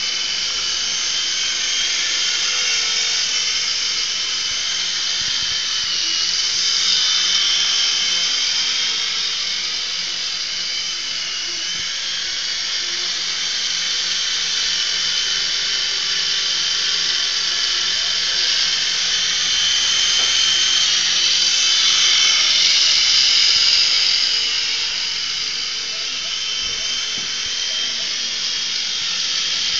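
Syma S026G toy Chinook-style RC helicopter in flight: a steady high-pitched whine from its small electric motors and twin rotors, swelling louder and easing off as it moves about.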